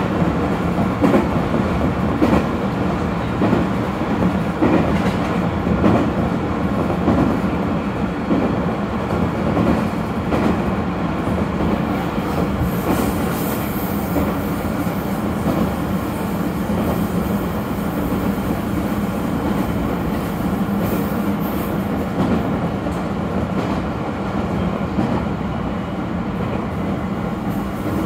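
Running noise of an electric train heard from inside the passenger car: a steady rumble of wheels on rails, with rail-joint clicks most noticeable in the first ten seconds. A faint high-pitched wheel squeal comes in briefly about halfway through.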